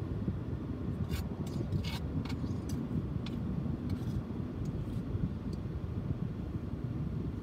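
Steady low rumble, with a cluster of small clicks and scrapes between about one and three and a half seconds in.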